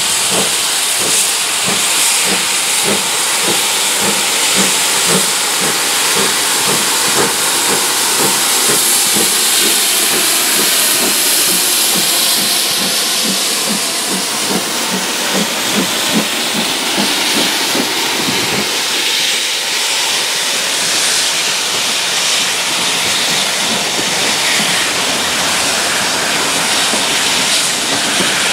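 GWR 45xx Small Prairie 2-6-2 tank locomotive No. 4555 pulling away with a train, with steady exhaust beats over the hiss of steam. About two-thirds of the way in the beats stop, leaving the rolling rumble of the coaches passing.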